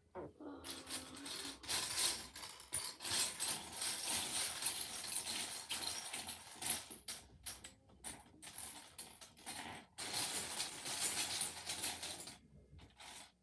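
Loose plastic LEGO pieces clattering as hands rummage through a pile of bricks to find a part: a dense, continuous rattle of small clicks that stops near the end.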